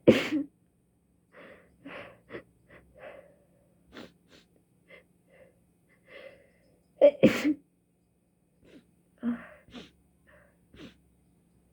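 A person sneezing hard twice, once right at the start and again about seven seconds later, with many smaller breathy sounds between, part of a sneezing fit they can't stop, brought on by a stuffy nose.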